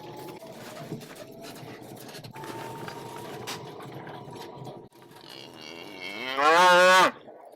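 A beef cow lets out one loud moo near the end, rising in pitch and lasting a little over a second.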